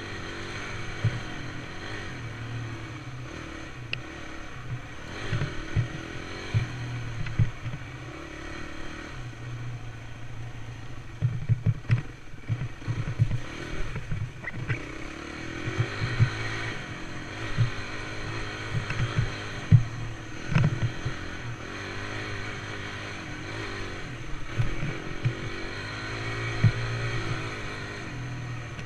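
Dirt bike engine running under the rider as it climbs and falls in pitch with the throttle over a rough trail, with frequent short sharp knocks and clatter.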